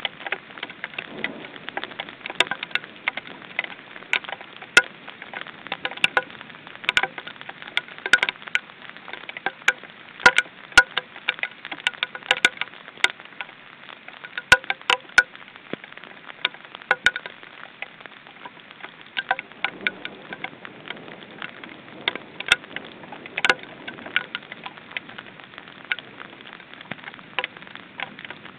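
Rain falling: a steady hiss of rain, with irregular sharp drops ticking close to the microphone several times a second.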